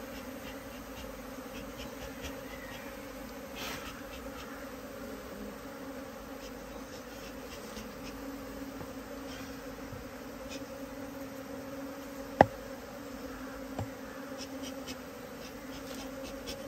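Honeybees of a queenless colony humming steadily as they take to the air, smoked off their stand so they fly away to join neighbouring hives. A single sharp click comes about twelve seconds in.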